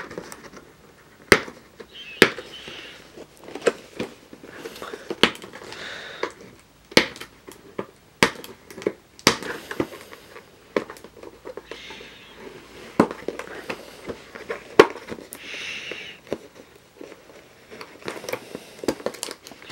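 Cardboard product box and paper insert being opened and handled close to the microphone: many sharp clicks and taps with short bursts of rustling and crinkling.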